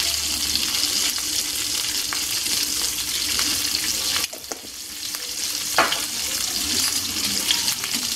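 Whole shrimp sizzling steadily in hot olive oil in a frying pan. The sizzle drops briefly a little past halfway, and there is one sharp click about six seconds in.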